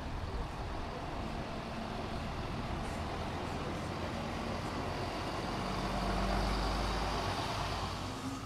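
Yellow PostAuto city bus driving past slowly, its engine running with a steady low hum that grows louder about six to seven seconds in.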